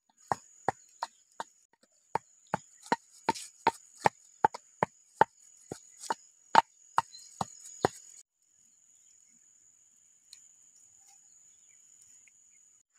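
Wooden pestle pounding in a mortar: a steady run of sharp knocks, about two and a half a second, with a short break about two seconds in, stopping about eight seconds in.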